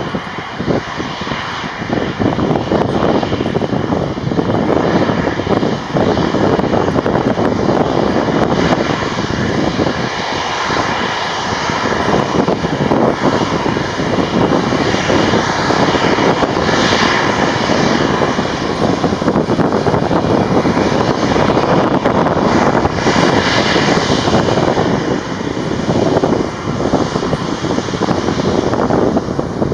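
Airbus A319 airliner's two jet engines running as it rolls along the ground after landing and taxis past, a loud, steady rush of engine noise that swells a little partway through.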